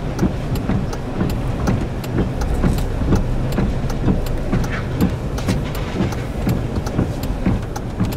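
A vehicle engine running steadily at idle, a low hum, with sharp ticks at a fairly regular pace of about two a second.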